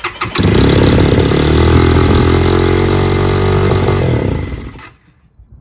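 XPro Templar X 250cc dirt bike engine being cranked and catching on a cold start with a newly fitted 30mm NIBBI carburetor, then running steadily at a high idle, "a little RPM-y", which the owner puts down to a throttle cable set too tight. The engine sound drops away near the end.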